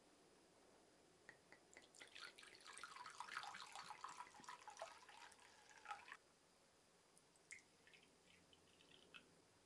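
Sake poured from a glass bottle into a small pouring vessel: a splashing pour of about four seconds that starts with a few drips and stops abruptly. A few seconds later come short trickles and drips as it is poured on into a small porcelain sake cup.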